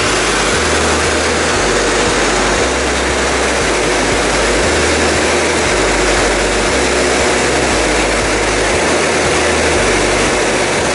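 Steady, loud drone of a propeller jump plane's engine, heard from inside the cabin.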